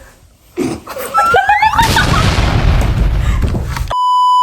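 Wind buffeting the microphone in a snowstorm, a loud low rumble lasting about two seconds after a brief rising vocal cry. Near the end a steady electronic beep cuts in.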